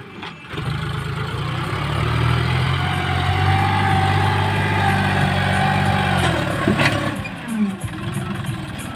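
John Deere 5036D tractor's three-cylinder diesel engine working a front loader. It runs steady and grows louder under load for a few seconds, then the revs drop off near the end.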